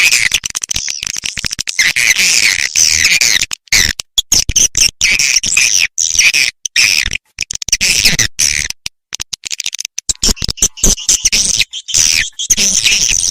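Recorded swiftlet calls: dense, rapid chirring and twittering, high-pitched and broken by many brief gaps. It is a swiftlet lure call of the 'lintasan' kind, played at a swiftlet house to draw passing birds in.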